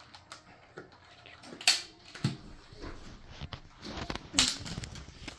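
Plastic clicks, knocks and rattles of a Dyson V6 handheld vacuum's body and parts being handled and worked open by hand, irregular, with two louder sharp clicks about 1.7 s and 4.4 s in.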